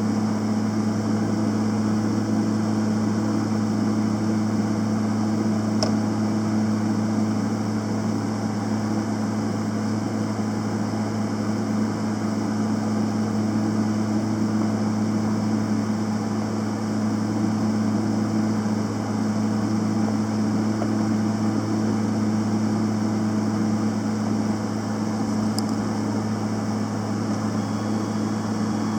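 Panasonic YD-350GB2 semi-automatic welder running with a steady electrical hum and a constant noise over it.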